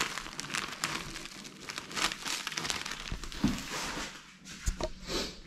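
Clear plastic wrapping on a packet of noodles crinkling as it is turned over in the hands, with a few soft knocks in the second half.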